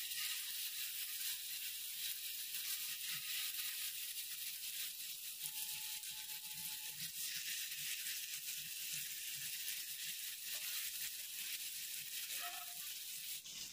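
Marinated chicken pieces shallow-frying in hot oil in a non-stick pan: a steady sizzle with fine crackling.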